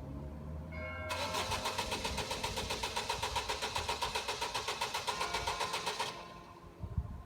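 Car starter motor cranking the engine with a rapid, even beat for about five seconds, then stopping without the engine catching: the car won't start.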